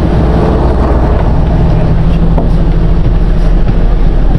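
Coach bus's diesel engine idling, a steady low hum.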